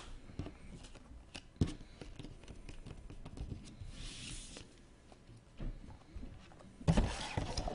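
Small handling noises: scattered light clicks and taps, with a short rustle of packaging about four seconds in and a louder rustle near the end.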